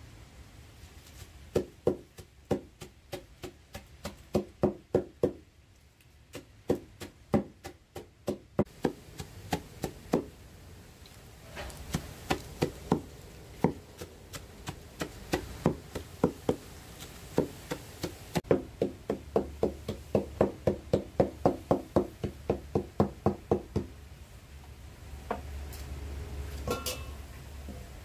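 A broad kitchen knife chopping fresh leafy herbs on a round wooden cutting board: runs of sharp knocks on the wood, up to about four a second, broken by short pauses.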